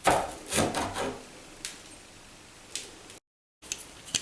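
Small metal clicks and rattles from a removed tubular door latch being handled: several sharp clicks in the first second, then scattered light ticks. Its mechanism is jammed and will not move.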